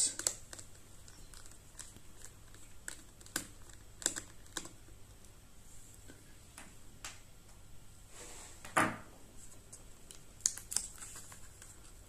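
Scattered small clicks and taps of a Phillips screwdriver and the tiny screws being handled while the battery screws of a Dell Latitude 7290 laptop are taken out, with a brief scrape or rustle about nine seconds in.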